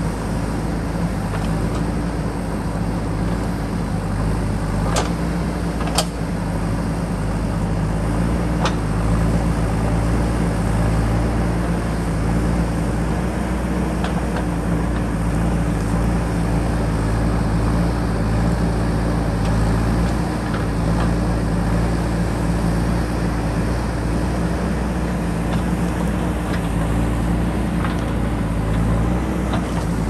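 Diesel engine of a JCB 3DX backhoe loader running steadily under load while the backhoe digs, with a few sharp knocks, two of them about a second apart around five seconds in.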